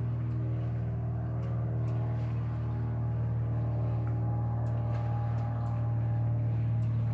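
A motor's steady low hum with evenly spaced overtones, unchanging throughout, with a few faint high ticks over it.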